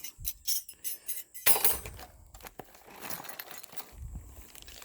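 Sterling silver flatware clinking together as the pieces are handled: a few sharp clinks, then the loudest clatter about a second and a half in, followed by fainter clatter.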